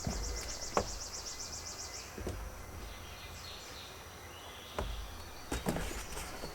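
A high insect chirr in rapid, even pulses for about the first two seconds, with a few sharp knocks and rustles from items being handled, most of them clustered about five to six seconds in.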